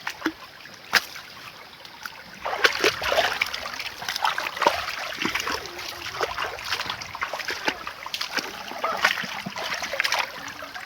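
Water splashing in a shallow stream: a quiet start, then from about two and a half seconds in a quick, irregular run of splashes.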